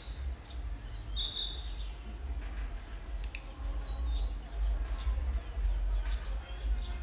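Wind rumbling and buffeting on the microphone, with a few short, high chirps.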